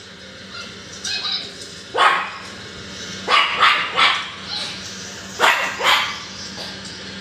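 Pug barking repeatedly: sharp barks in short bunches of two or three, over a steady low hum.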